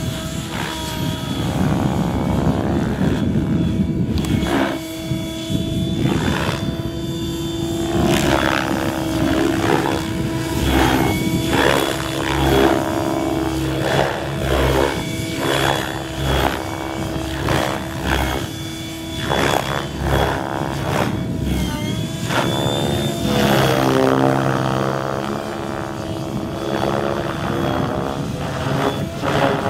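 Electric Gaui X7 radio-controlled helicopter flying 3D aerobatics: a steady motor and gear whine under rotor-blade noise that swells and drops in repeated quick pulses, the pitch rising and falling as the blades are flipped back and forth in tic-tocs.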